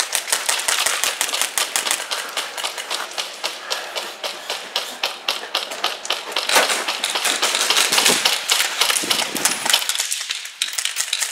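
Airsoft guns firing fast, several at once, making a dense, continuous clatter of sharp shots that eases off slightly near the end.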